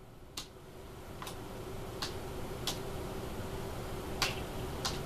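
Six sharp single clicks at a computer, unevenly spaced about half a second to a second and a half apart, as keys or a mouse are pressed one at a time. A faint steady hum runs underneath.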